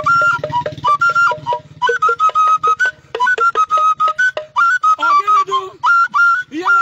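A flute playing a fast tune of short, clipped notes that step between a few high pitches, often sliding up quickly into a note.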